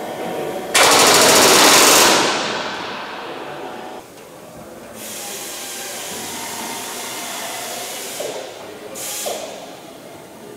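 Pneumatic rivet gun hammering a rivet into the Lancaster's aluminium door frame in one rapid burst of a little over a second, starting about a second in. Steady workshop background noise follows, with a brief high-pitched hiss just after nine seconds.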